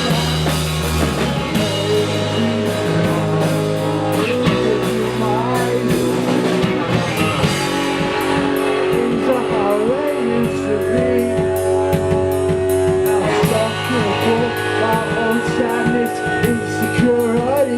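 A rock band playing live: guitar and drum kit, with cymbal strokes at an even beat.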